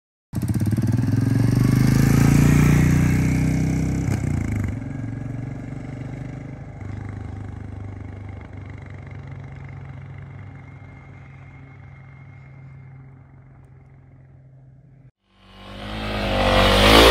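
Royal Enfield Meteor 350's single-cylinder engine pulling away and fading steadily as the bike rides off into the distance. Near the end the engine sound cuts off and a loud whooshing sound effect swells up.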